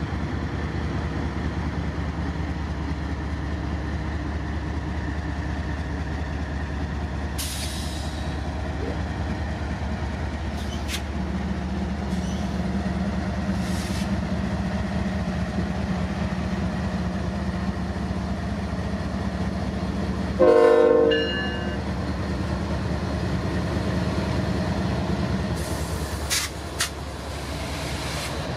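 CN freight train passing close by: diesel locomotives running with a steady engine rumble, a short horn blast about two-thirds of the way through, and a few sharp wheel clicks and squeals from the rails.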